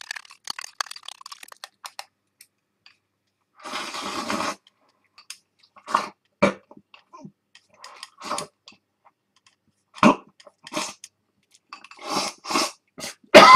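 Eating egg-coated rice from a ceramic bowl with chopsticks: quick clicks of the chopsticks on the bowl, a noisy rush of about a second as the rice is slurped in, then chewing and short mouth sounds.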